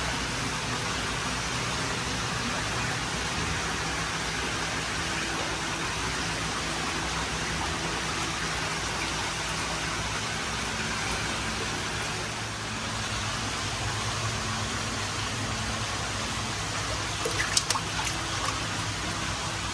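Steady rush of water running into a koi holding vat, over a low steady hum. A few sharp splashes near the end as koi thrash in a plastic bowl of water.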